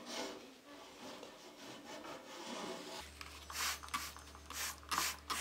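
Sponge and cloth rubbing and scrubbing on a painted panel radiator and its pipe. It is faint at first, then from about three seconds in comes a quick run of short scrubbing strokes over a low steady hum.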